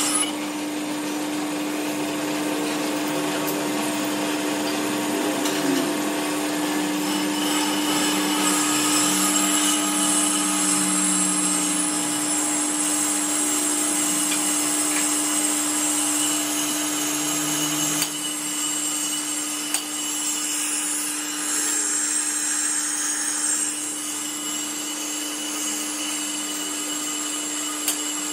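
Brake lathe turning a brake drum while its cutting tool resurfaces the drum: a steady machine tone with a high scraping ring from the cut. There is a sharp click about two-thirds of the way through.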